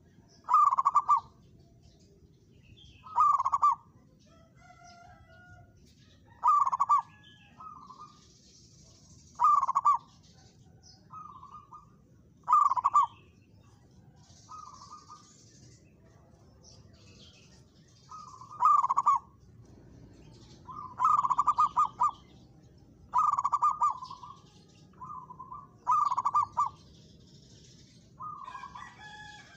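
Zebra dove (perkutut) cooing its song in repeated short phrases, a loud one about every three seconds, with fainter similar phrases between them. Thin high chirps of small birds sound above.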